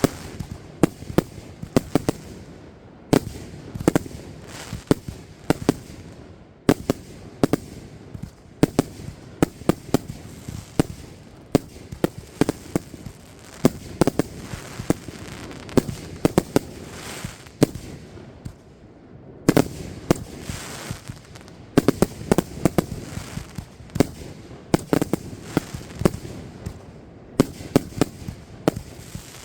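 Fireworks going off in quick succession: many sharp bangs and pops, several a second, broken by a few short lulls.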